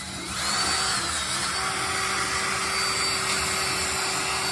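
Cordless drill spinning a dryer-vent cleaning rod and brush inside a wall duct. The motor winds up in pitch over the first half-second, then holds a steady whine over a broad hiss as the brush works its way around a 90-degree bend in the duct.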